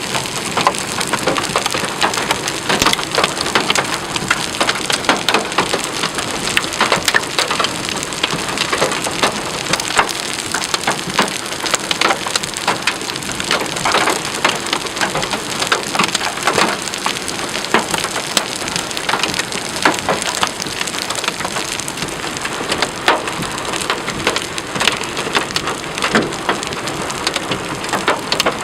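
Heavy thunderstorm rain pouring down onto a surface, a dense steady patter sprinkled with many sharp hits throughout.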